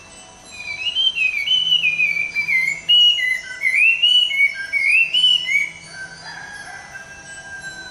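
Chinese hwamei (họa mi) singing: a loud run of varied, gliding whistled phrases, then one long held lower note near the end.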